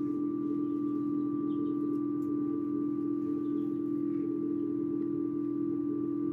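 Steady hum of an egg incubator's fan motor: one strong unbroken tone with a fainter higher whine above it, and a few faint ticks as an egg is handled.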